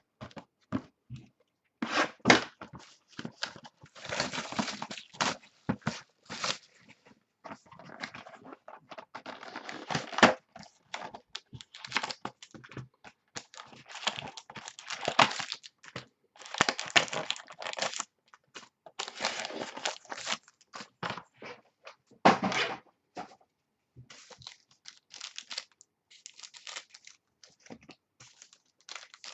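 Trading-card packaging being torn and crinkled by hand: irregular tearing and crinkling of wrapper material, with scattered clicks and light thunks as packs and cards are handled.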